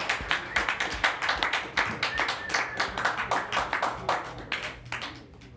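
A small audience clapping at the end of a song, irregular hand claps that thin out and die away about five seconds in.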